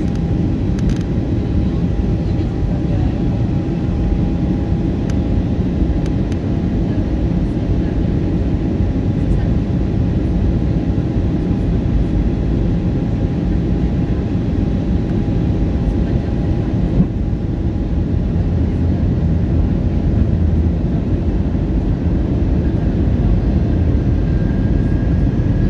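Steady cabin noise inside an Airbus A320 descending on approach: an even low rumble of the jet engines and airflow. A faint steady whine sits above it and fades out about twenty seconds in, and a higher faint tone comes in near the end.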